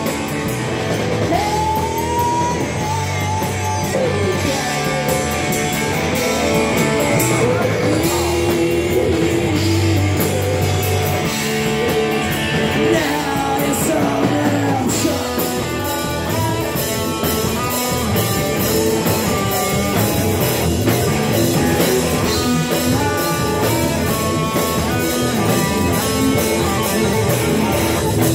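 Live rock band playing: a woman singing into a microphone over amplified electric guitar and a drum kit.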